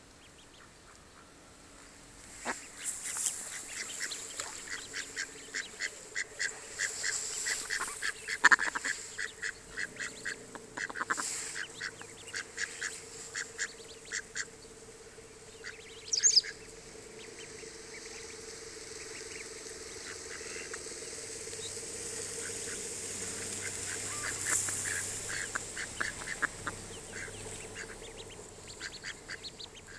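A mallard brood calling: a fast run of short calls starting about two seconds in, thinning out after about fifteen seconds, with one louder call near the middle and a few scattered calls near the end.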